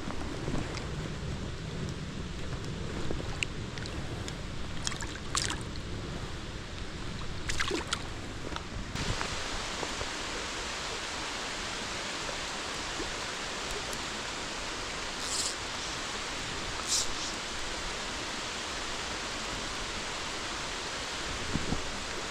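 Rain falling on a flowing trout stream, a steady hiss of water. About nine seconds in the hiss suddenly becomes fuller and brighter, as the rain comes down harder. A few sharp taps are scattered through it.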